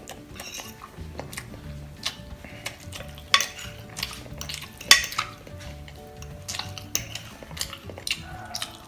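Metal fork clinking and scraping against a glass dish while stirring and twirling instant noodles, with scattered sharp clinks, the two loudest about three and a half and five seconds in.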